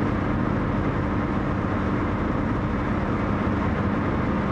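Steady engine hum and road noise inside a car's cabin while driving at an even speed.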